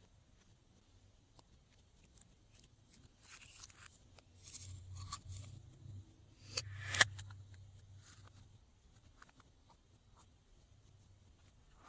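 Slime being worked by hand, making soft, irregular sticky crackles and rasps. They start about three seconds in, are loudest about seven seconds in, then die away to faint.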